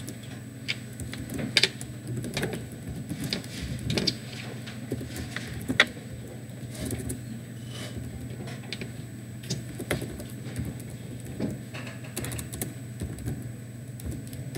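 Irregular keystrokes on a computer keyboard as code is typed, over a steady low hum.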